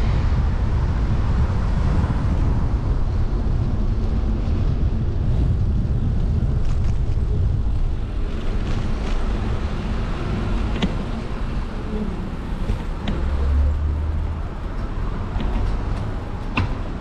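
Road traffic noise heard from a moving bicycle: a loud, steady low noise of passing motor vehicles and the ride itself, a little quieter after about halfway, with a few light clicks.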